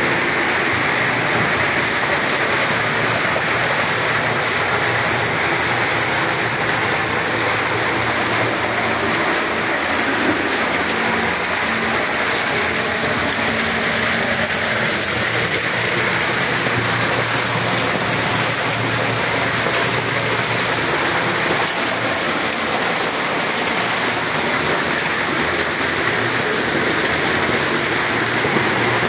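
Water falling and splashing steadily in a small homemade waterfall, a constant rushing with no breaks.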